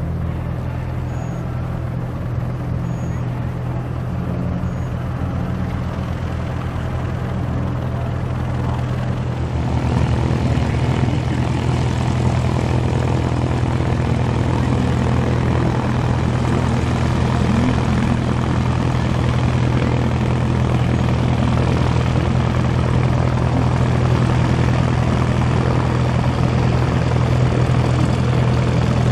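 Single-engine propeller airplane's engine running steadily, first distant in the air, then louder and closer from about nine seconds in as the plane rolls along the runway.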